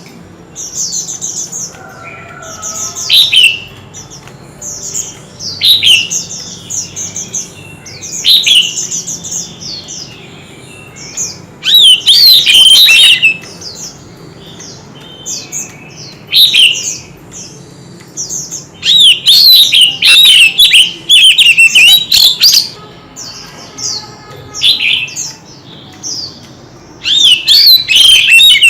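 Oriental magpie-robin singing: bursts of varied, quick whistled and warbling phrases every few seconds, with long loud runs of song around the middle and again near the end.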